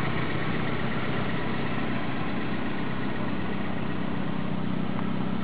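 1999 Chevy Prizm's 1.8-litre four-cylinder engine idling steadily.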